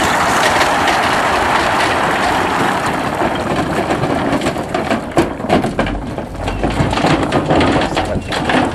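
A load of riprap stone sliding out of a raised plastic-lined dump trailer bed and crashing onto the ground: a dense rush of sliding rock, turning about halfway into clattering knocks and cracks as the stones tumble onto the pile. A truck engine runs underneath.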